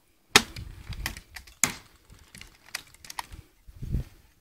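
A few sharp clicks and knocks at irregular spacing, the two loudest about a second and a half apart near the start, with low rumbling noise in between.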